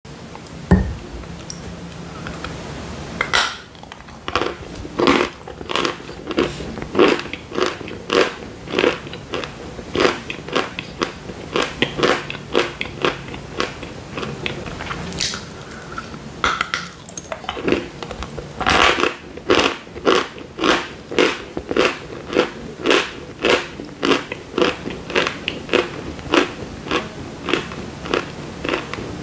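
Dry chalk bars being bitten and chewed. A sharp bite snap near the start is followed by steady crunching chews, about two a second, with another louder bite about two-thirds of the way through.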